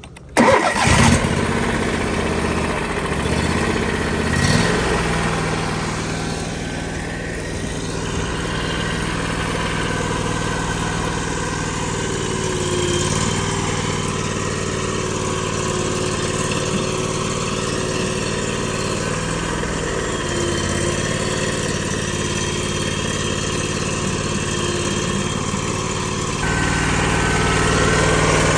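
Bandit SG40 stump grinder's engine running, coming in suddenly and then holding mostly steady, with small shifts in pitch and a change in tone about 26 seconds in.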